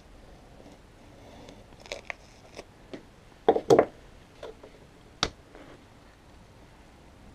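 Paper and board being handled while mounting a print with brown paper tape: scattered paper rustles and light taps, a louder rustling knock about three and a half seconds in, and a single sharp click a little after five seconds.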